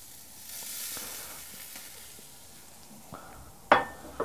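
Raw tuna steaks sizzling as they are laid on a hot cast-iron grill grate, the hiss swelling as the second steak goes down and then fading. A single sharp metallic clink near the end.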